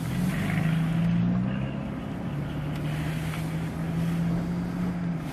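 Car engine running, heard from inside the cabin: a steady low drone whose pitch shifts down about two seconds in, with some road and wind noise.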